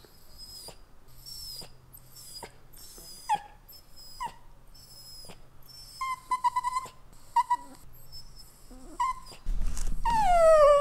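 Italian greyhound whining through its nose: a string of short, high-pitched cries, then near the end a louder, longer whine that falls in pitch.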